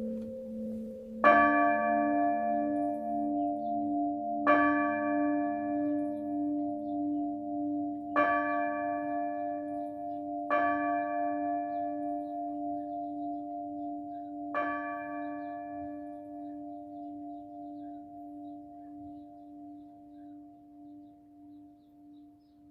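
A single church bell struck five times at uneven gaps, each stroke ringing on with a slowly wavering low hum that gradually fades away.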